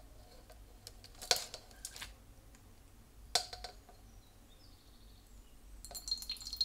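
A few light knocks and taps from kitchen handling. About six seconds in, vegetables start sizzling gently in olive oil in a pan as they sweat.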